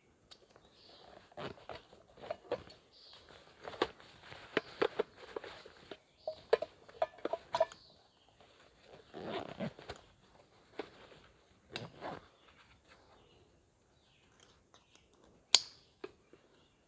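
Irregular knocks, clicks and rustling of things being handled, with one sharp click near the end.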